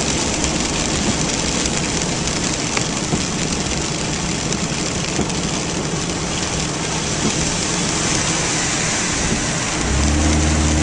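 Car driving on a rain-soaked road: a steady hiss of rain and wet tyres over the engine. Near the end a steady low hum sets in.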